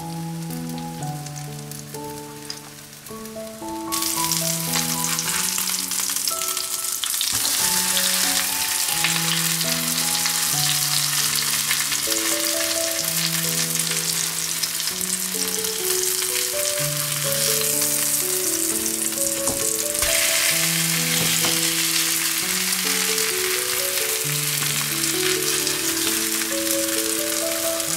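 Egg-and-flour battered turkey breast cutlets frying in oil in a pan, a steady sizzle that becomes much louder about four seconds in. A gentle background music melody plays underneath.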